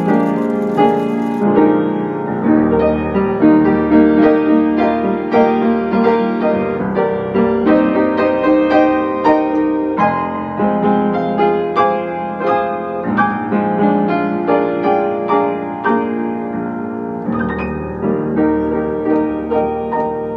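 Background piano music: a flowing run of notes, fading slightly near the end.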